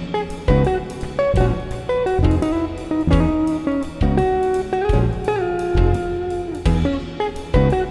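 Background music: a guitar-led instrumental with bass notes and a steady beat, one guitar note bending upward about five seconds in.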